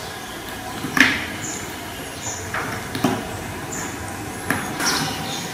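Kitten playing with a string hung from a golden footed bowl: about five sharp knocks and taps, the loudest about a second in, over a steady background noise.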